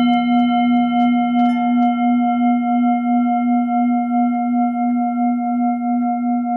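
A loud, steady ringing tone held without fading, with a low fundamental and a higher overtone that wavers in a regular pulse, like a struck singing bowl or tuning fork in a meditation track.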